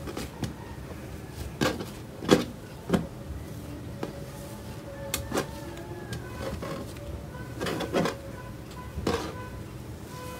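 Pink cloud slime being kneaded and folded by hand, giving irregular sticky crackles and pops, with faint background music.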